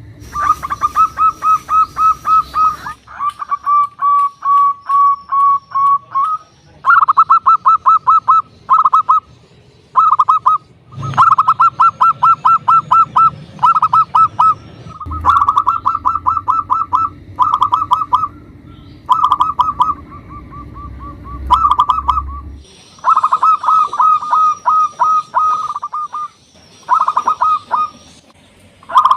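Zebra dove (perkutut) singing: phrases of rapid staccato coos, each about one to two seconds long, repeated with short gaps between them.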